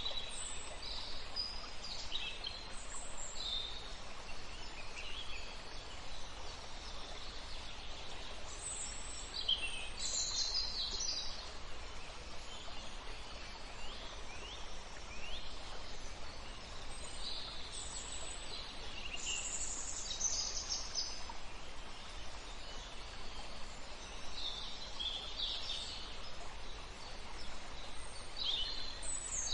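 Birds calling and singing on and off, with many short high chirps and a few quick falling notes, over steady outdoor background noise.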